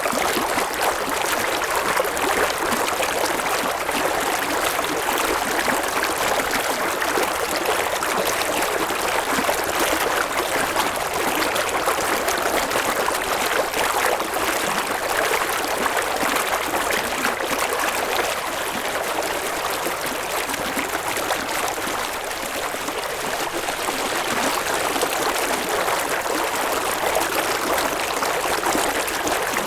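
A river flowing over stones, a steady rushing and babbling of water that holds an even level.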